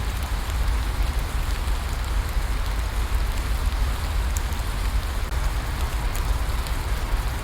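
Steady rain falling, with a deep rumble underneath and faint scattered drop ticks.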